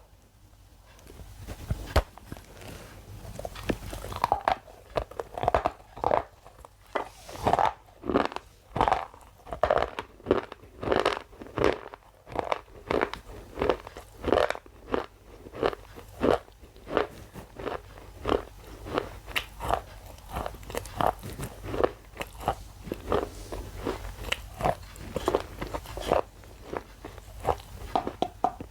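Thin white shale crunching as it is bitten and chewed, close to the microphone. The crunches come about twice a second, starting about four seconds in after a quieter opening.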